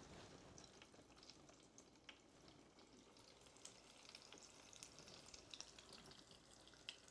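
Frozen sweet potato fries frying in a deep fryer's hot oil: faint, steady sizzling and crackling, with a couple of light clicks.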